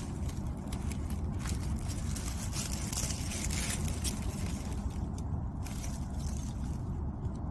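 Wind buffeting the microphone in a steady low rumble, with intermittent rustling and scraping over the first few seconds.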